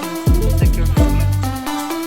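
Electronic background music with a heavy bass beat: a deep kick on each beat under sustained synth notes.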